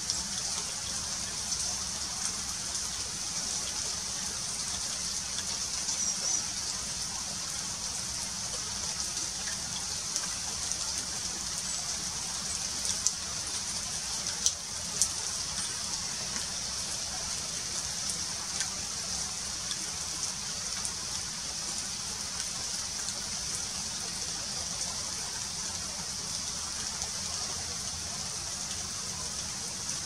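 Steady rain falling on vegetation: an even hiss, with a few sharp drop ticks about halfway through.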